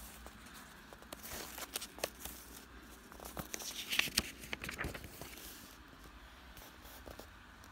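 Page of a paper picture book being turned and the book handled: soft paper rustles and small taps, loudest about four seconds in.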